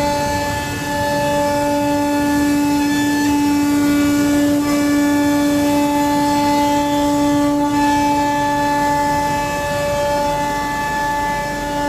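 CNC wood router's high-speed spindle running with a steady high whine and overtones, over a low rumble of machining; the whine dips briefly near the end.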